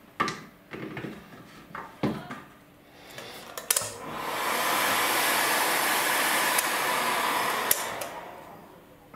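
Handheld electric heat gun blowing hot air onto a plastic bottle, switched on about three and a half seconds in, running steadily, then winding down near the end. Before it, a few clicks and knocks as the bottle is handled with pliers.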